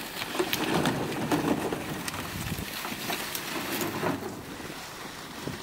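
Dry cattail reeds rustling and crackling as someone moves through them at the marsh edge, a continuous rustling noise.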